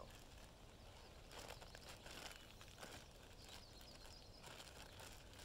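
Near silence, with faint crinkling of a small plastic bag being handled, a few short rustles in the first three seconds.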